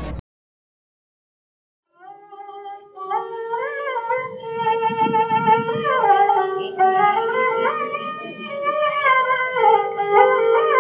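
Background music that starts about two seconds in after a silent gap: an ornamented melody with sliding notes over a steady drone.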